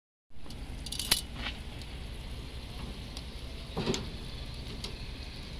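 Metal tongs clicking and knocking against a charcoal grill's grate among barbecued chicken drumsticks: a sharp click about a second in and another knock near four seconds. A steady low rumble runs underneath.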